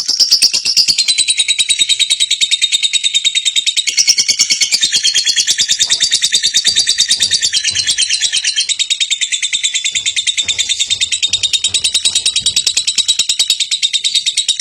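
A lovebird in full song, giving one long, unbroken run of rapid, shrill chirping notes.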